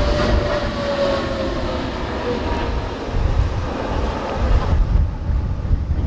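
Boeing 777-300ER's twin GE90 jet engines on landing approach: a heavy rumble with an engine whine falling in pitch over the first two seconds or so, and the higher hiss dropping away near the end. Strong wind buffets the microphone.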